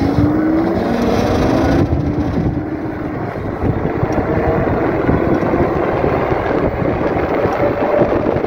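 Bafang 750 W rear hub motor whining under throttle as the electric bike accelerates, its pitch climbing over the first couple of seconds and again near the end, over a steady rush of wind noise.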